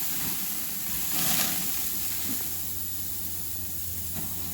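Whole sardines sizzling on a very hot grill, a steady hiss that swells briefly about a second in. A low steady hum comes in about two seconds in.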